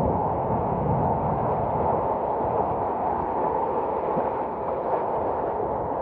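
Steady rush of floodwater pouring across a road.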